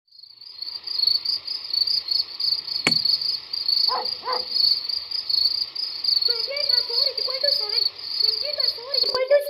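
Crickets chirping steadily in a high, pulsing trill that fades in at the start. There is a sharp knock about three seconds in and two short calls about a second later.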